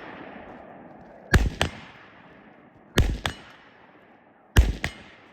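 Three gunshots, evenly spaced about a second and a half apart, each followed a moment later by a second, quieter crack and a fading echo.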